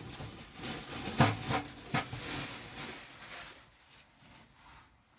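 Rubbing and scraping handling noise with two sharp knocks, about a second and two seconds in, then quieter.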